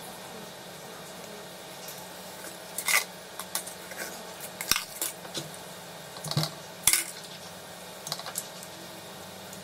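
Small clicks and scrapes of miniature dashboard lamp bulbs and their plastic holders being pulled out of a Fiat 128 instrument cluster by hand: a dozen or so short sharp clicks, the loudest about three seconds in and just before seven seconds, over a faint steady hum.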